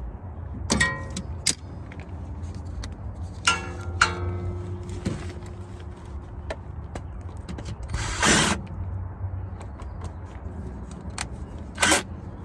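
Metal tool work on a Mk1 VW's CV axle flange bolts: several sharp metallic clinks that ring briefly, then two short rasping bursts of a power tool, about eight and twelve seconds in.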